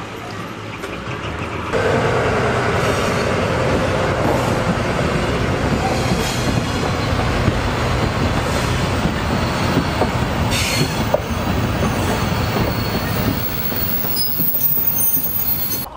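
Railway train rolling past close by: loud, steady wheel-on-rail noise with scattered clicks. It rises sharply about two seconds in and cuts off suddenly at the end.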